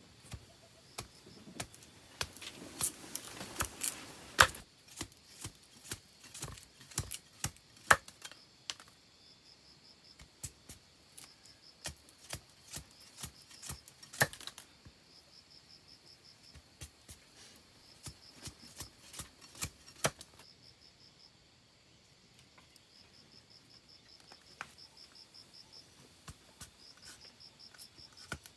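Large knife splitting and shaving a bamboo tube: irregular sharp cracks and snaps as the blade works along the grain, with a longer rasping split a couple of seconds in and a few louder single cracks.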